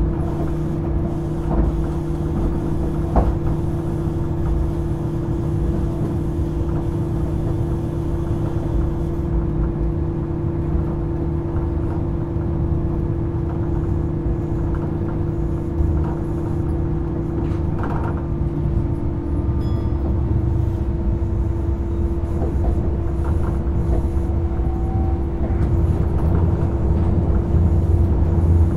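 Inside a Hitachi-built Tokyo Monorail Series 1000 car with resistor control, running along the line: a steady hum with a held mid-pitched whine and a low rumble. A lower whine drops away about two-thirds of the way through. The rumble grows louder toward the end, with a few faint knocks along the way.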